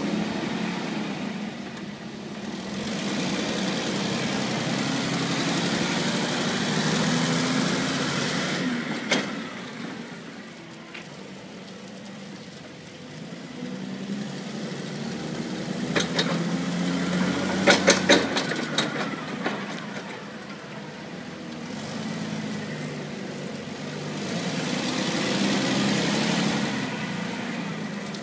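Toyota 6FGU35 8000 lb forklift engine running as the truck drives around, rising and easing off in several long swells. A handful of sharp knocks come together about two-thirds of the way through.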